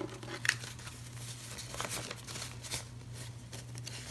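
Paper banknotes rustling and crinkling as they are picked up, shuffled and counted by hand, in scattered soft flicks, over a faint steady low hum.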